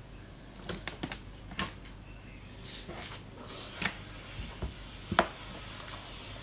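Light clicks and knocks of small objects being handled: several in quick succession in the first two seconds, a short hiss near the middle, and a sharper knock about five seconds in.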